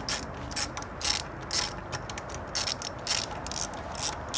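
Hand ratchet being worked in quick back-and-forth strokes, each stroke a short burst of pawl clicks, about two strokes a second.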